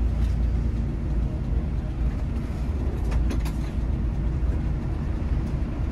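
Intercity coach's diesel engine running, heard from inside the passenger cabin as the bus rolls slowly: a steady low rumble with a few faint clicks about three seconds in.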